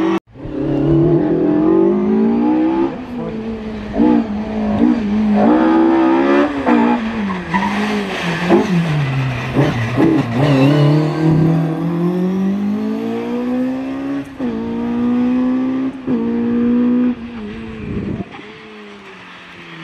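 Ford Escort Mk2 RS1800 rally car driven hard: the engine revs climb and drop again and again through gear changes and lifts for corners as it passes. It pulls away and fades near the end.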